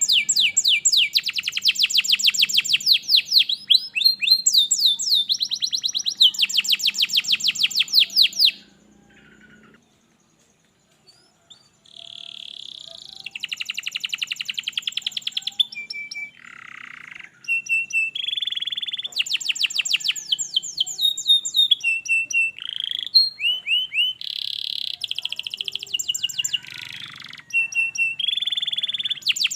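Domestic canary singing in fast trilled phrases, each a quick run of repeated high notes, with a pause of about three seconds a third of the way in before the song resumes.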